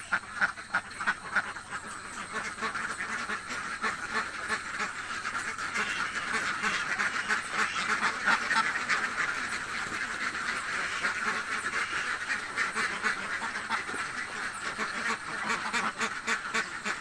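A flock of hungry domestic ducks quacking: a few separate loud quacks at first, then a dense chorus of many overlapping quacks.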